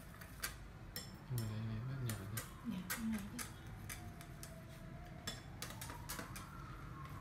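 Chopsticks stirring a chunky dipping sauce in a glass bowl, clicking and tapping irregularly against the glass. A brief low voice comes in about a second and a half in.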